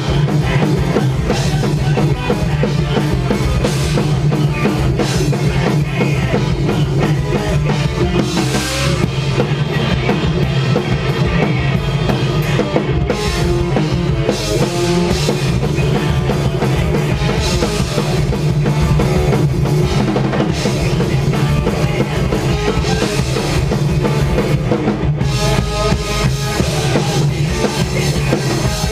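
Post-hardcore band playing live: a full drum kit, with bass drum and snare to the fore, under dense, loud band music that runs on without a break.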